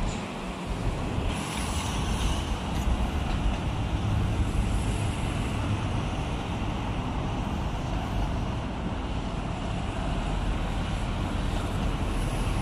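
Steady road-traffic noise from a busy avenue, with wind rumbling on the microphone.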